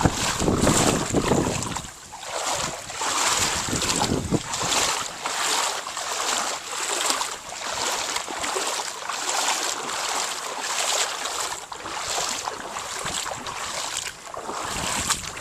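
Rhythmic sloshing and swishing of legs wading through floodwater, about two strides a second. Wind rumbles on the microphone in the first two seconds and again near the end.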